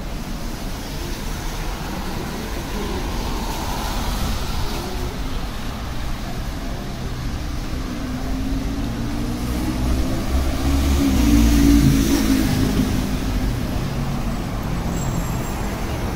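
Street traffic: a steady low rumble, with a motor vehicle's engine passing close by, louder from about eight seconds in, loudest near twelve seconds, then fading.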